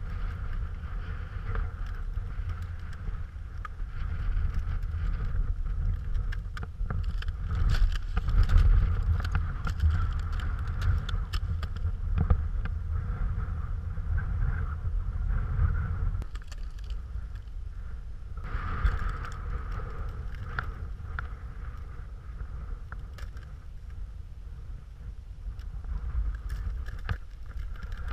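Muffled low rumble with scattered knocks and clicks, heard through a GoPro's sealed underwater housing as it is moved above and under meltwater in cryoconite holes. The rumble eases about two-thirds of the way through.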